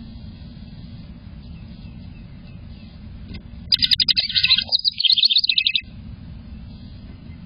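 A house wren sings once, about four seconds in: a rapid run of repeated high notes lasting about two seconds. A low steady rumble runs under the rest.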